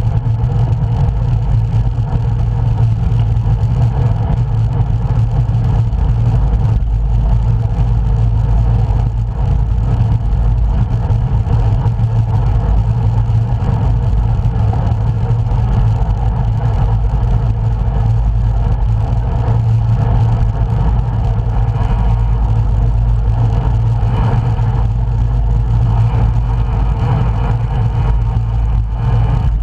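Steady, loud low rumble of wind and road noise on the microphone of a camera riding along on a road bicycle.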